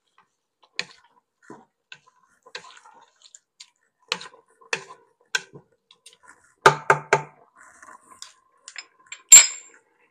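A stirring utensil knocking and clicking against a stainless steel pot while rice is stirred into simmering liquid, with a quick run of three taps about two-thirds through and a loud ringing clank on the metal near the end.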